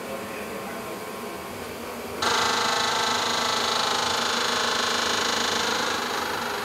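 A steady, high electric buzz, like a small electric motor running, starts suddenly about two seconds in and eases a little near the end.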